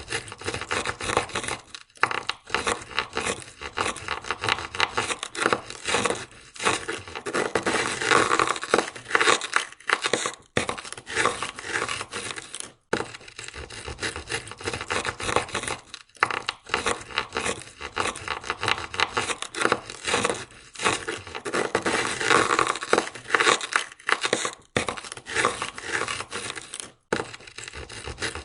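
Ice scraper scraping ice off a car window in quick, closely packed strokes, with short pauses every few seconds.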